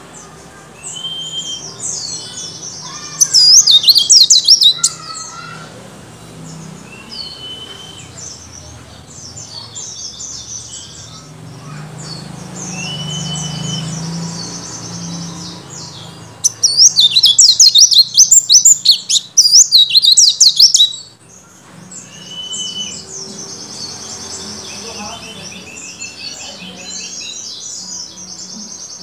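Caged white-eye (pleci) singing: soft chirps and short whistles throughout. Twice, about three seconds in and again for about four seconds past the middle, it breaks into a loud, rapid twittering song, a bird that has come into full song after three days of supplements.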